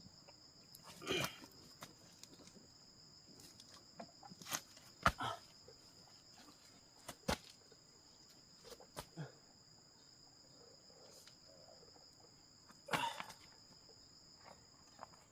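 A steady, high insect drone, cricket- or cicada-like, with a few scattered knocks and scuffs over it.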